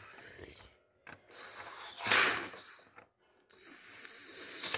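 Breathy hissing and puffing made with a person's mouth, in several bursts, the loudest about two seconds in and a steady hiss over the last second or so: a home-made sound effect for a toy machine zapping a LEGO figure.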